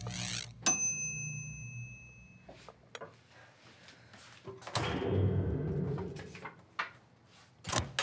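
Microwave oven finishing its run: its hum stops, a click, then its bell dings once and rings for about two seconds. A few seconds later come handling noises and a thunk, with a sharp knock near the end.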